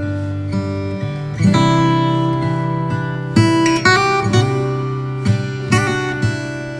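Background music: acoustic guitar strumming chords, a new chord struck every second or so and left to ring.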